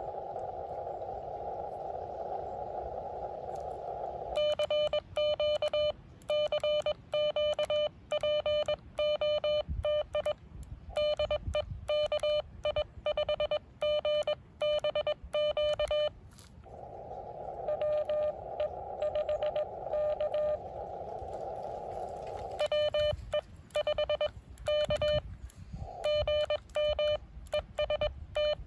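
Amateur radio transceiver in CW mode: Morse code sent as a loud, clean, mid-pitched keyed tone in two long runs, starting about four seconds in and again from about 23 seconds. Between the runs comes a band of receiver hiss heard through a narrow CW filter, with faint Morse buried in it.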